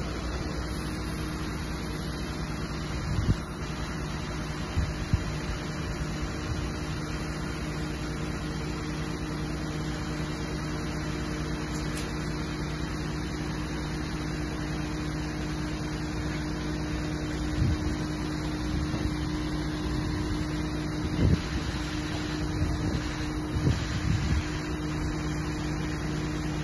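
Truck-mounted crane's engine running steadily with a constant low hum while the crane holds and slews a hot tub on its hook. A few short knocks are heard now and then.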